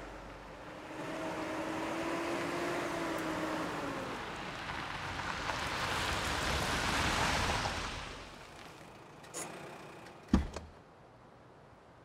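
A car approaching and driving past, its engine and tyre noise swelling and then fading away. After it, a small click and then a sharp clunk, the loudest sound, as the car's door latch is worked.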